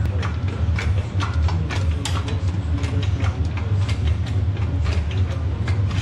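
Irregular sharp metal clicks and knocks, several a second, from hand work on a backhoe loader's gearbox hanging on a hoist chain, over a steady low hum.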